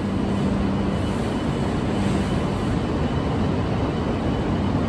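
A shinkansen train moving along the platform, a loud, steady rushing noise with a low hum that fades about two seconds in.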